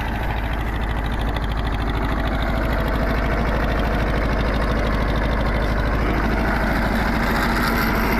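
TAFE tractor's diesel engine running steadily with an even pulse, getting a little louder over the first few seconds.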